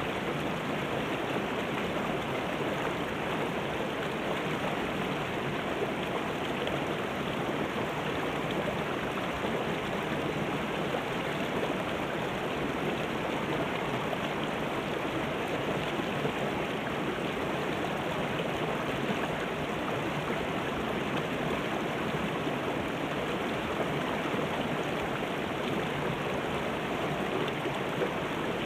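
A shallow, rocky river rushing over boulders and through small cascades: a steady rush of water.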